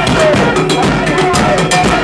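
Supporters' band drums beating a fast, steady rhythm, with shouting voices over them.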